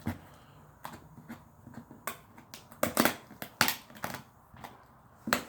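Gift packaging being torn and crumpled open by hand: an irregular run of sharp crackles and rips, the loudest about halfway through and near the end.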